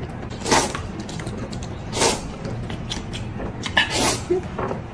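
Noodles being slurped from a bowl: three short slurps, each about a second and a half apart.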